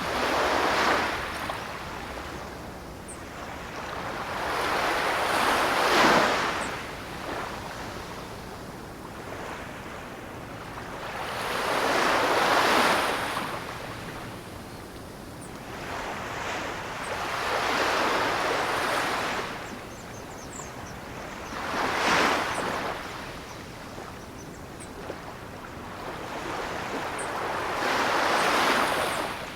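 Ocean waves breaking and washing in, each wave swelling and fading away, about every five to six seconds.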